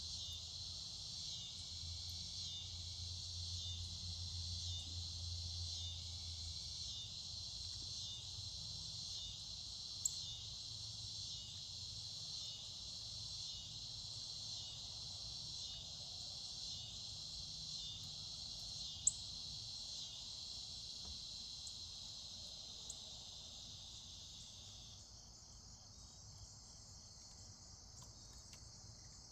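A steady chorus of insects outdoors: a dense, high-pitched trilling that pulses in an even rhythm. About 25 seconds in it thins and grows quieter. A few faint clicks stand out above it.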